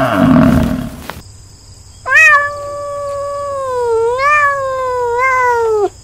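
A water buffalo's low call dies away in the first second. About two seconds in, a tabby domestic cat gives one long drawn-out meow of nearly four seconds, rising in pitch twice along the way and falling away at the end.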